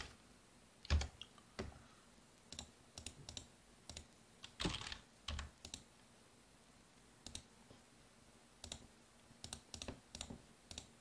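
Computer keyboard typing: scattered, irregular key clicks with a few soft thumps, as numbers are keyed into a calculator.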